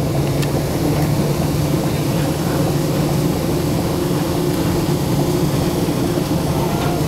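Cabin sound of a 1947 Canadian Car-Brill T-44 electric trolley coach travelling along a street: a steady hum from its electric drive over road noise.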